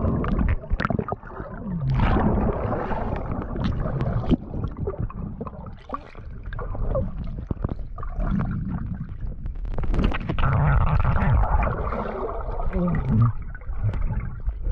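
Water heard from underwater around a swimmer: muffled churning and gurgling of water and bubbles, swelling in two louder surges and broken by occasional knocks.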